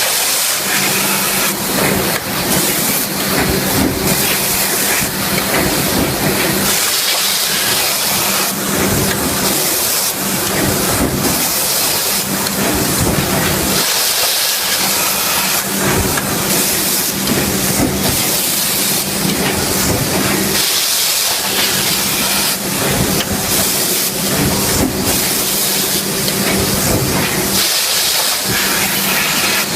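Loud drop-forging shop machinery noise: a steady hiss over a low hum, with dense rapid clattering. The low hum briefly drops away about every seven seconds.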